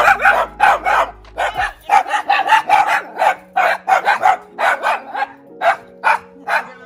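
Small Yorkshire terriers barking in a rapid, unbroken string of short, sharp barks, about three a second.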